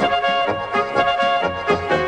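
Instrumental music: a melody of held notes over a bass line of short, changing notes.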